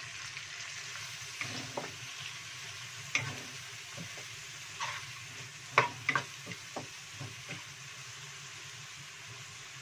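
Ground spice paste, red chilies, lemongrass and lime leaves sizzling in hot oil in a non-stick wok while a wooden spatula stirs them, with sharp knocks and scrapes of the spatula against the pan. The knocks stop about eight seconds in, leaving the steady sizzle of the raw spice paste being sautéed.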